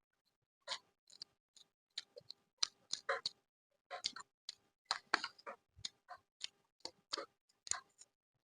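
Close-miked eating of crab curry: a run of sharp, irregular clicks and crunches, several a second, with brief quiet gaps between them.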